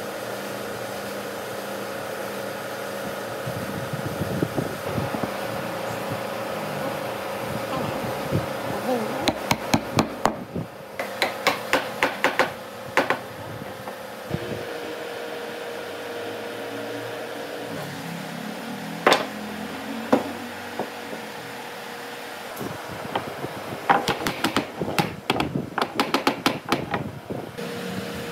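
A mallet knocking glued wooden frame joints together: a quick run of sharp knocks about a third of the way in, two single knocks past the middle, and another fast run near the end, over a steady hum.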